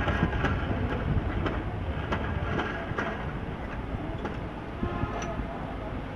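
Steady low rumbling background noise with a few faint clicks and taps scattered through it.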